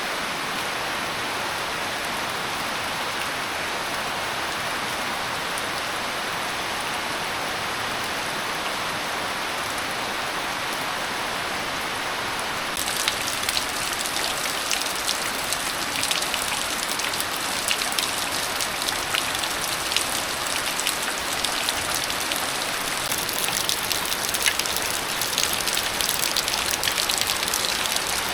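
Rain: a steady hiss, which about halfway through changes abruptly to closer, brighter rain with many small sharp drop ticks.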